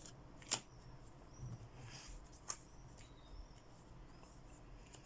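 Quiet room with two faint sharp clicks, about half a second and two and a half seconds in, and a soft brief rustle between them.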